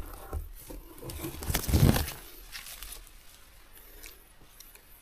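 A banana being peeled by hand: the skin tearing and rustling in a few pulls, loudest about two seconds in, then faint.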